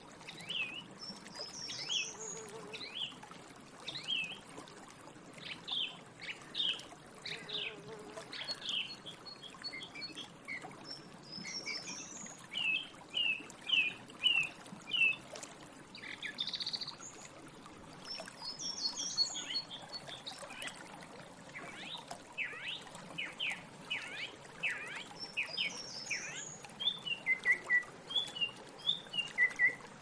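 Songbirds singing: a steady stream of short whistled notes and chirps, some phrases repeated several times in a row.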